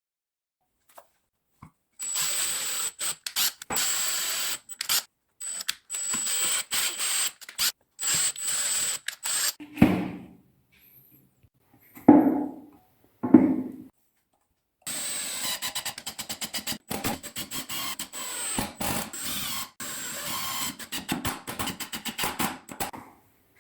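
A power drill running in many short trigger bursts, with three loud knocks on wood near the middle, then more short drill bursts.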